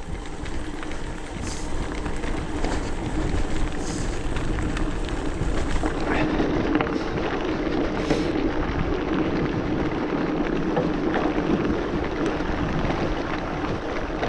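Hardtail e-mountain bike rolling along a forest trail: steady tyre and drivetrain noise with light rattling, and wind on the microphone, building over the first couple of seconds.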